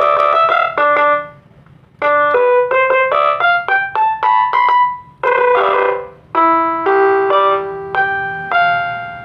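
Casio SA-47 mini electronic keyboard played with both hands in short runs of notes and chords, reproduced through a TOA horn speaker driven by a small TDA2003 amplifier. The playing comes in three runs with short breaks, the last one ending on long held notes.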